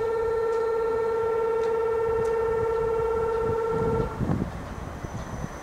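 Diesel railcar's horn sounding one long steady blast of about four seconds, followed by the low rumble of the railcar rolling in to the platform.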